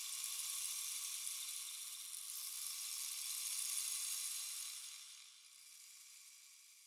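A steady high hiss with no clear pitch or rhythm, fading away near the end.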